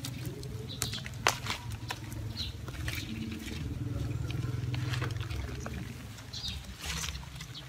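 Gerbera clump being pried apart by hand in the soil: scattered crackles and clicks of roots and earth giving way. Under them runs a low rumble that swells and fades about halfway through.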